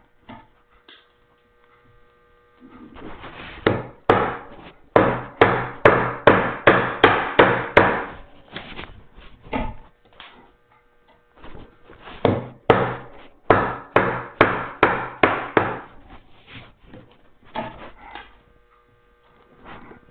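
A mortise chisel struck repeatedly with a mallet, chopping out the waste of a hand-cut mortise in small slices. The strikes come about two to three a second in two runs with a short pause between, over a faint steady hum.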